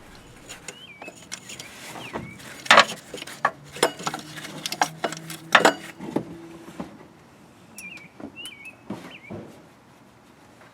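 Metal clinks and knocks of tools and parts being handled while a belt tensioner is unbolted and worked out of an engine bay, with a few short squeaks. A low steady hum runs through the middle few seconds.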